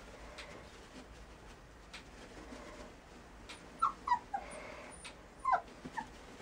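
Border collie puppies whimpering: a handful of short, high squeaky whines in two bunches, one a little past the middle and one near the end.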